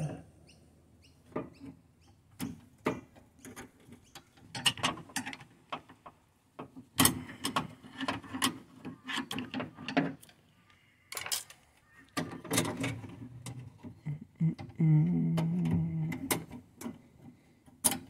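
Irregular metal clicks, taps and light knocks from a hand working the door latch linkage inside a 1977 Ford Falcon XC door, fitting the handle rod and its retaining clip onto the latch lever. There is a brief low hum for about a second near the end.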